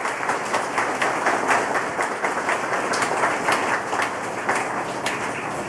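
Crowd applauding: a steady dense patter of many hands clapping.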